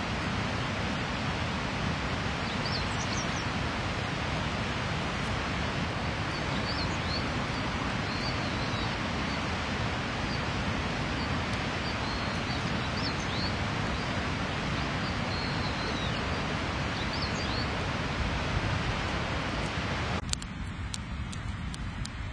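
Small birds chirping now and then over a steady rushing outdoor background noise. About twenty seconds in the background cuts to a quieter one with a few sharp crackling clicks.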